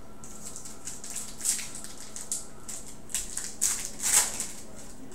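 Foil football card pack crinkling as it is picked up, handled and torn open: a run of crisp rustles, loudest about four seconds in.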